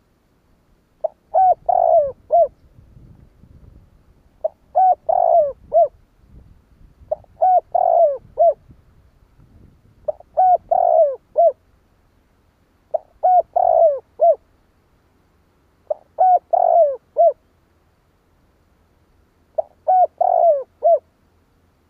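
Spotted dove (chim cu gáy) cooing: a short phrase of several low coos repeated seven times, about every three seconds. It is a decoy dove's call, used to provoke wild doves into answering.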